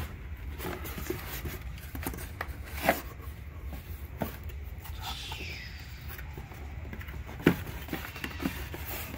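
Cardboard boxes and paper being handled: scattered rustles, scrapes and light knocks, the sharpest knock about seven and a half seconds in.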